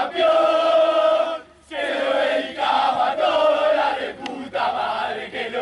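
A group of voices chanting together in unison, in long held phrases broken by short pauses, a celebration chant after a win.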